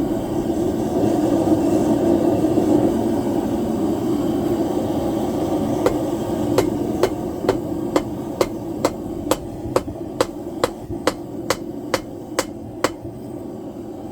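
Hammer blows setting a rivet in the joint of a pair of blacksmith's tongs. About sixteen sharp, evenly spaced strikes, roughly two a second, start about six seconds in and stop just before the end, over a steady low rushing noise.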